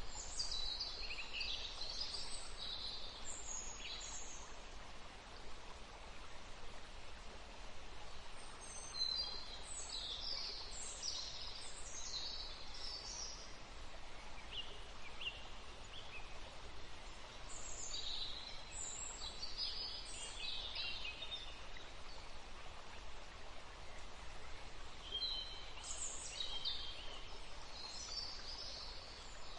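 Small birds chirping and twittering in bouts of quick high notes, over a steady soft hiss of flowing water from a small forest river.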